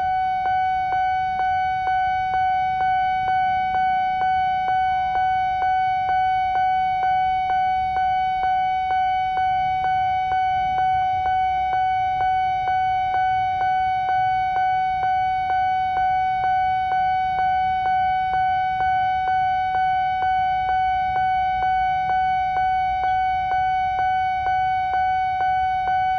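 Railway level-crossing warning alarm sounding while the crossing is active: a steady, bell-like tone re-struck about twice a second, unchanging throughout.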